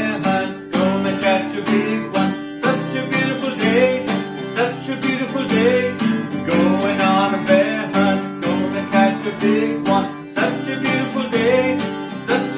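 Acoustic guitar strummed in a steady rhythm, with a man's voice singing along.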